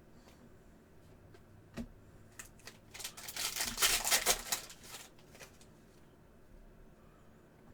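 Football trading cards being handled and slid through by hand. There is a sharp tap a little under two seconds in, then a scratchy rustle of card stock for about two seconds around the middle.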